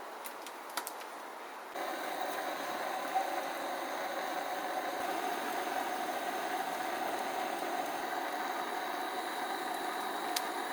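A steady mechanical running noise with a hum, starting abruptly about two seconds in and holding unchanged.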